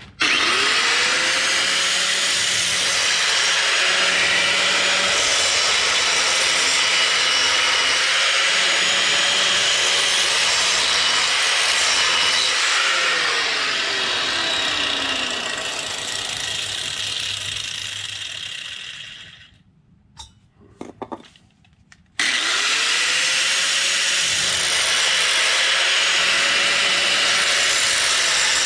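Angle grinder spinning up and grinding on the metal of an aftermarket trailing arm, opening up the mount because the bushing is too tight to fit. The motor winds down about halfway through and the grinding fades out. After a short pause with a few clicks, the grinder is started again and spins up to grind once more.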